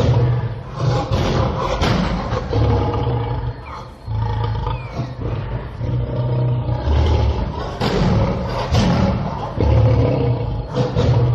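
Lion roaring: a series of deep roars, each about a second long, with short breaks between them and a brief lull about four seconds in.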